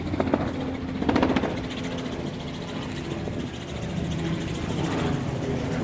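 An engine running nearby, a steady pitched hum that grows louder through the second half.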